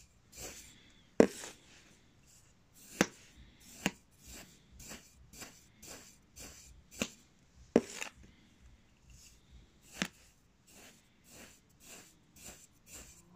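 Kinetic sand being sliced with a sand cutter: a run of soft crunches as the blade pushes through, with about six sharper, louder ticks among them.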